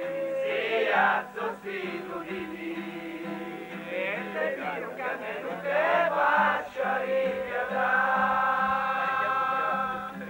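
A group of voices singing together in a chant-like song, with long held notes near the end.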